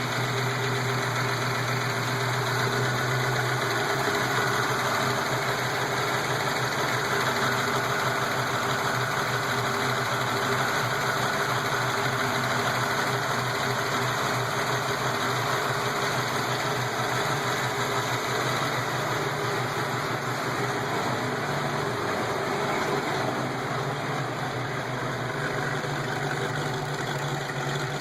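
A 331 engine idling steadily with lifter noise, the ticking of the valve lifters.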